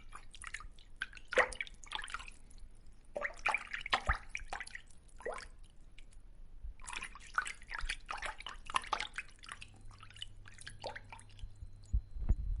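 Wet dripping and popping water sounds: rapid small clicks and drips come in three clusters with short pauses between them, and a few low thumps follow near the end.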